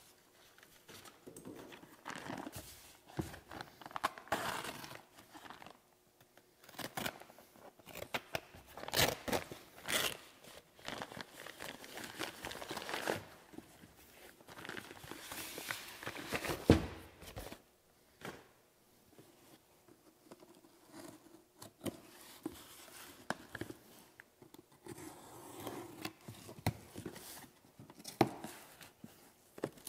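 Heavy paper packaging being crumpled, torn and handled in irregular rustling bursts, then a cardboard box being opened. A single sharp knock about 17 seconds in.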